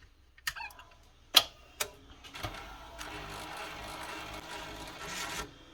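Tape transport mechanism of a JVC BR-S611U S-VHS deck: a few sharp clicks, then about three seconds of steady mechanical churning that stops suddenly. The owner takes it for a broken gear in the transport, with the drive belt slipping.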